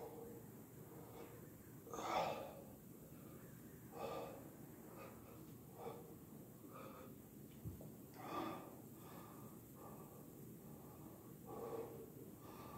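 A man breathing hard to recover from a set of push-ups, with puffed exhales every second or two. The loudest come about two seconds in and again around eight seconds.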